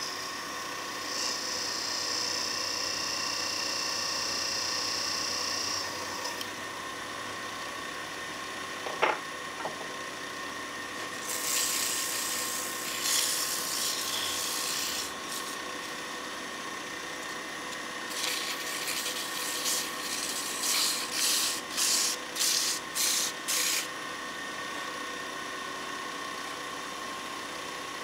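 Wood lathe motor running with a steady whine while a turning tool or abrasive rubs and scrapes on spinning pine. It comes in a long scratchy pass, a single click, then a run of short rasping strokes about twice a second.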